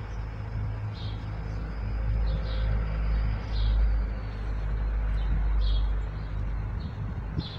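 Outdoor ambience: a steady low rumble with short, high bird chirps about once a second.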